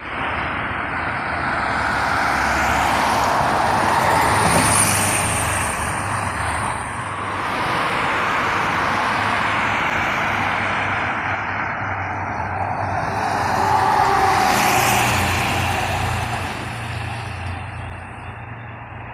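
Road traffic on a busy city street: cars driving past with tyre and engine noise that swells and fades as each one goes by, loudest about four seconds in and again about fourteen seconds in, with a low engine hum under the second half.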